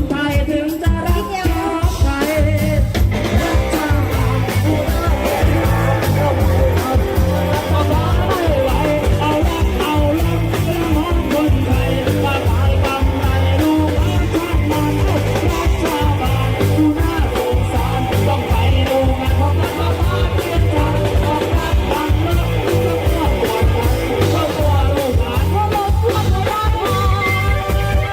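Loud live band music from a Thai rot hae sound-truck band: singing over a driving drum beat and heavy bass.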